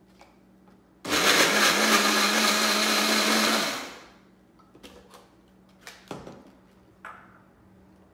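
Single-serve personal blender running, blending frozen strawberries and other fruit with water into a smoothie. It starts abruptly about a second in, runs steadily for about two and a half seconds, and winds down, followed by a few light knocks.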